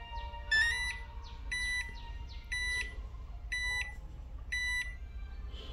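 Toshiba RC-6XG rice cooker's control panel beeping as its minute button is held down to set the clock: five short electronic beeps about a second apart. Each beep is a repeat step of the held button, the minutes jumping ten at a time.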